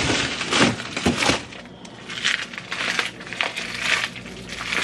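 Frozen food being rummaged through in an upright freezer: plastic bags and containers crinkling, rustling and knocking in irregular bursts.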